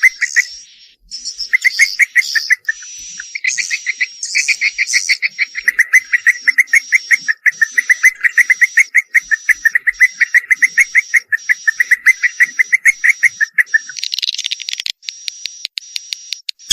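Swiftlets calling: a fast, even chatter of chirps under a thin, high, steady twitter, in bouts broken by short pauses. The low chatter drops out near the end, leaving the high twittering.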